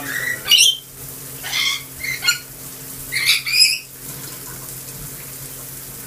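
Rainbow lorikeet giving about six short, shrill screeches in the first four seconds, over the steady hiss of a running shower.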